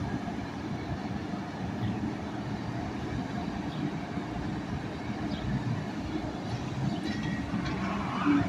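Freightliner concrete pump truck running steadily.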